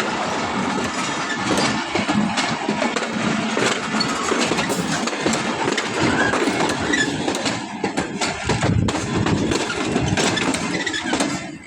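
Train running on the rails, a steady rumble full of clattering and rattling, which drops away just before the end.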